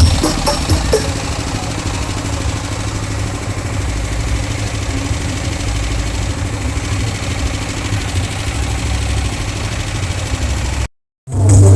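Steady low rumble of an idling engine with heavy bass. It cuts off abruptly near the end.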